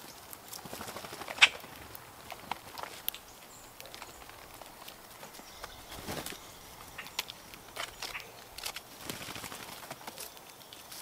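Blue jays' wings flapping in short flutters as the birds fly in and out, among scattered light ticks and rustles on dry forest litter. One sharp tap about a second and a half in is the loudest sound.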